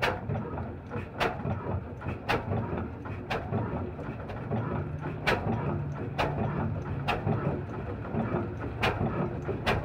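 Old black 26 hp slow-speed stationary diesel engine running, its flywheel turning, with a low steady chug and a sharp exhaust crack about once a second.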